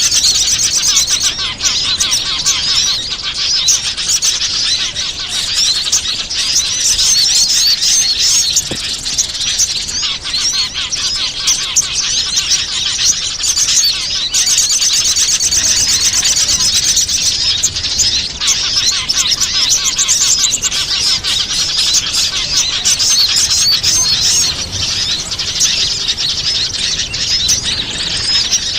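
Dense chorus of many small songbirds chirping and twittering at once, high-pitched and unbroken: a bird-lure (pikat) recording mixing the calls of various small wild birds to draw them in.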